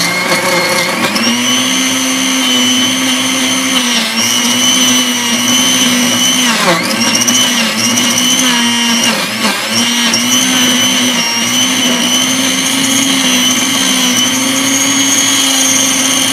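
Black & Decker FusionBlade blender motor running loud and steady, its whine rising in pitch about a second in and dipping briefly three times, deepest about seven seconds in. The blade is barely turning the frozen mix: the plastic drive coupling on the motor's spin nut has melted.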